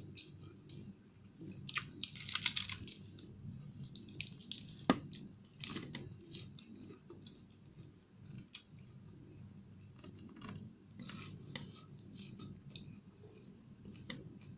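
Close-miked eating: a person chewing fried fish and lettuce, with crunching, wet mouth sounds and many scattered small clicks. A burst of crunching comes about two seconds in, and one sharp click, the loudest sound, near five seconds.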